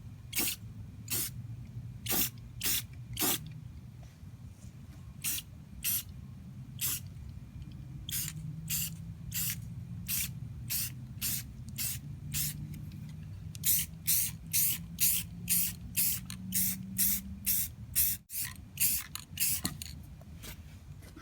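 Spray paint can hissing in many short bursts, about two a second in the busier stretches with pauses between, as coats are laid on. A low steady hum runs underneath.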